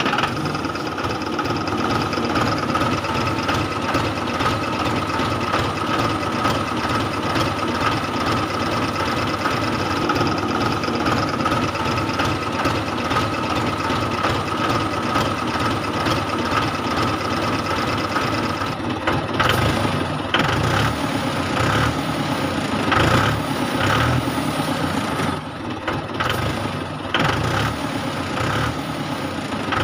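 Engine-like running sound of a homemade toy tractor pulling a loaded trolley. It starts abruptly as a steady rumble with a thin whine, then turns uneven and choppy about two-thirds of the way through.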